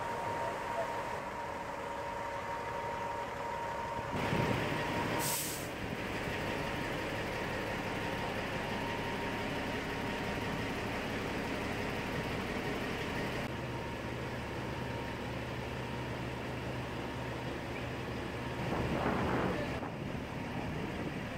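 Heavy diesel engines of a mobile crane and a semi truck running steadily, with a short sharp hiss of released air, like an air brake, about five seconds in and a swell of engine noise near the end.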